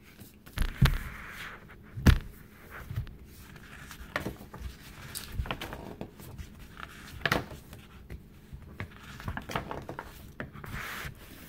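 A large hardcover picture book being opened on a table, its pages turned and pressed flat by hand: paper rustling, broken by several soft thumps and knocks against the tabletop.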